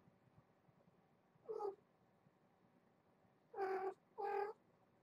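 Cat meowing: three short meows, one about a second and a half in and two in quick succession near the end.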